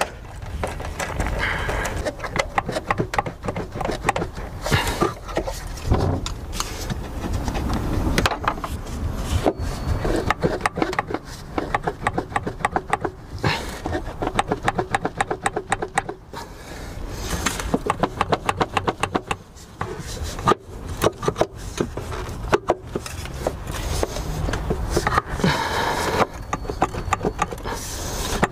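Hand tools working on metal engine parts: a long run of uneven clicks, knocks and scrapes, with some quicker rattling stretches.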